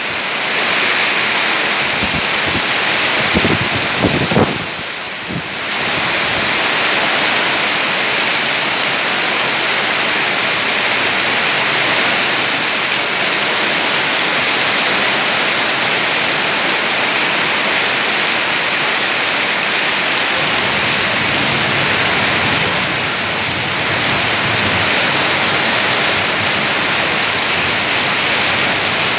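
Heavy rain pouring steadily through tree foliage in strong wind, a loud, even hiss.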